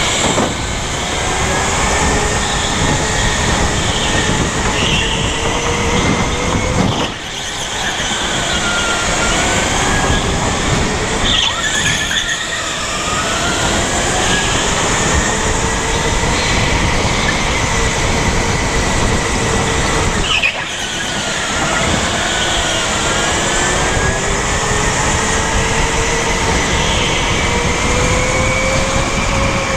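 Sodi RSX electric kart heard on board: the motor's whine slides down in pitch and climbs again as the kart slows for corners and speeds up, over a steady rushing noise. The sound dips sharply twice, about seven seconds in and again about twenty seconds in.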